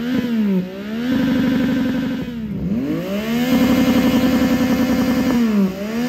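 Yamaha XSR900's inline three-cylinder engine revved through an aftermarket exhaust, held at high revs. The pitch dips and climbs back several times, with a deeper fall and a rising climb about two and a half seconds in.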